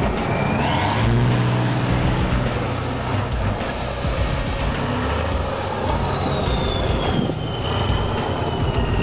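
Tatra 6x6 trial truck's diesel engine working hard under load. A high whistle climbs sharply about half a second in, then slowly falls away over the following seconds.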